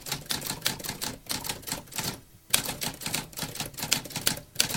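Typewriter keys clacking: a quick run of keystrokes, a short pause about two seconds in, then another run of keystrokes.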